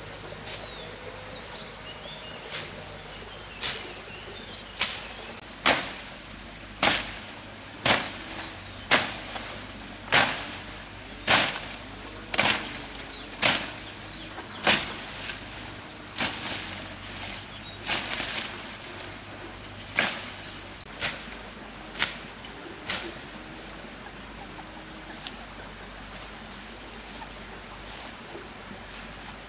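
Sharp, hard strikes, roughly one a second, stopping about three-quarters of the way through, over a steady high insect chirring.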